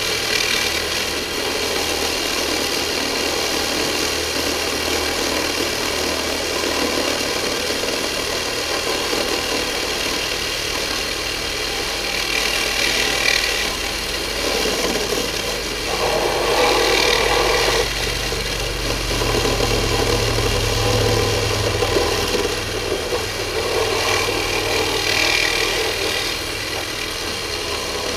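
Handheld power tool cutting through a rolled-up roll of galvanized steel hardware cloth, running steadily with a metallic rattle and a few louder spells as it bites into the wire.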